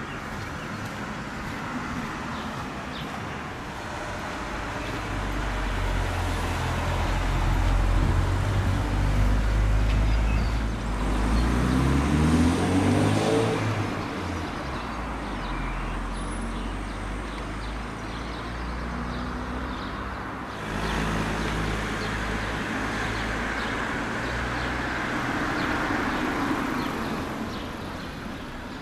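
Road traffic passing close by. A vehicle's engine rumbles low and then speeds up, its pitch rising for a few seconds around the middle. Later another vehicle goes by with a rush of tyre noise.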